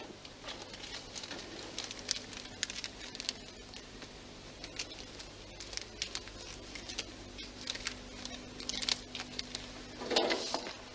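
Paper rustling and small light clicks as hanging files and cards are handled in a metal filing-cabinet drawer, over a faint steady hum. There is a louder crinkle about ten seconds in.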